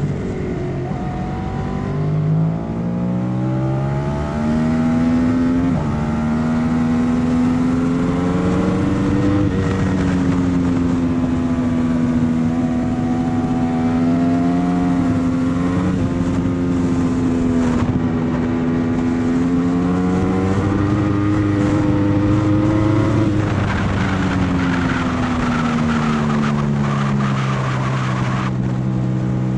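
Engine of a vehicle lapping a race track at speed. Its pitch climbs in steps with upshifts about 2 s and 6 s in, holds high with small dips through the middle, then falls steadily over the last few seconds as it slows.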